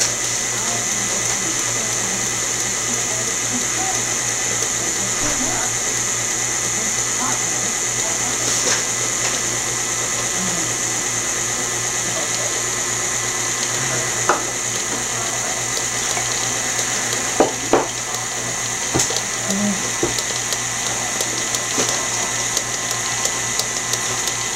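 KitchenAid tilt-head stand mixer running steadily, its beater turning thick chocolate cake batter in a glass bowl. A few sharp clicks sound over the motor hum.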